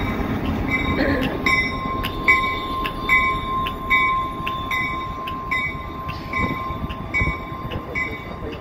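CSX diesel locomotives rumbling slowly past below, with a locomotive bell starting to ring about a second and a half in. The bell keeps an even beat of about two and a half strokes a second.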